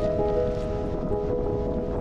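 Background music of soft, sustained held notes.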